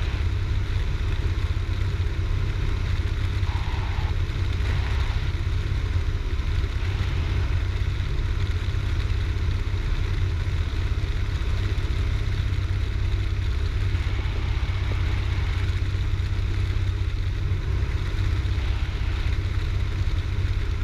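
Cessna 172's piston engine and propeller droning steadily in level flight, heard inside the cockpit.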